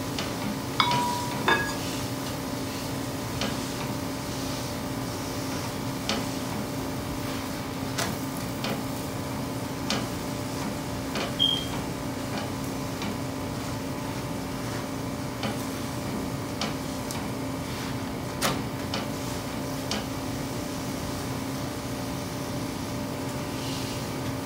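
Scattered light clicks and taps of a spatula on a nonstick griddle pan as a paratha is pressed and turned, over a steady kitchen hum.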